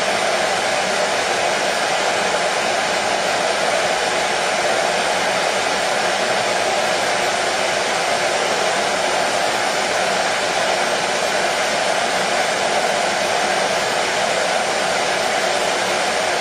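Hair dryer blowing steadily, a constant even rushing hiss with its strongest band in the middle range, used as continuous white noise.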